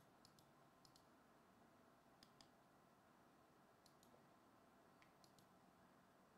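Near silence with a few faint computer-keyboard key clicks, mostly in quick pairs, spread irregularly.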